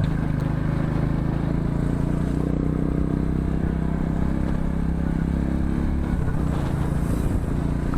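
Motorcycle engine running steadily while riding at road speed, with a steady low rush of road noise.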